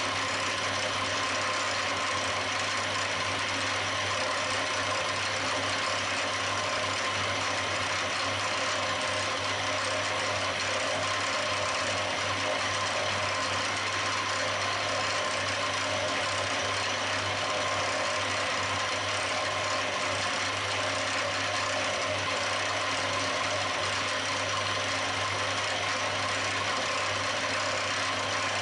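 Milling machine running steadily as its end mill cuts a port into the valve-seat face of an aluminium engine cylinder: an unchanging machine hum with a constant higher tone over it.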